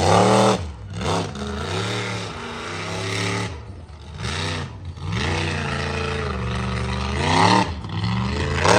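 Monster truck engine revving up and down over and over as the truck drives the dirt arena, the pitch climbing and dropping with each throttle stab, with a longer rising pull in the second half.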